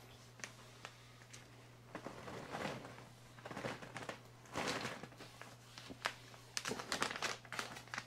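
Plastic bag crinkling and rustling in irregular bursts as it is handled and filled.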